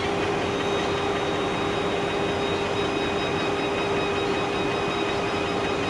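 Heavy machine-shop machinery running steadily: a constant mechanical drone with a steady hum, unchanging throughout.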